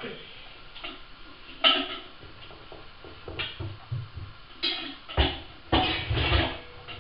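Metal pots and pans knocking and clattering as they are set down and stacked into a kitchen drawer: a handful of separate knocks, the loudest and busiest in the last two seconds.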